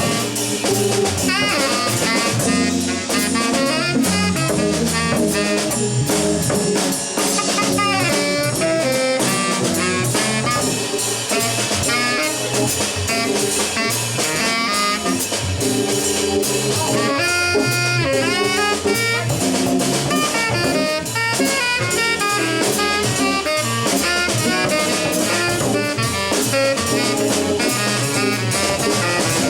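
A live jazz trio playing: a drum kit keeps a busy cymbal-driven beat under a lead instrument's running, bending melodic line.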